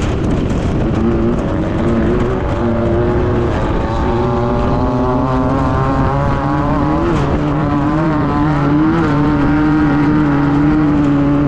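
Class 9 VW buggy's air-cooled VW engine running hard at high revs, its pitch wavering up and down with the throttle.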